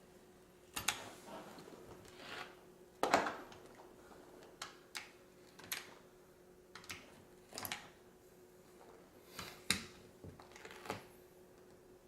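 Hand work on a rubber stall mat at a bench: about a dozen scattered short clicks and scrapes, the loudest about three seconds in, over a faint steady hum.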